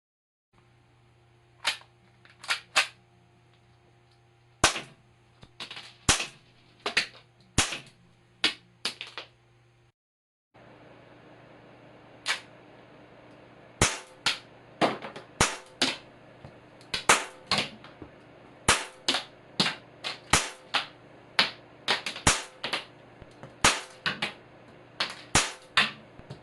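Tanio Koba GM7 blowback model pistol firing caps: a long series of sharp cracks, many followed closely by a second smaller click, fired in irregular strings with a short break about 10 seconds in.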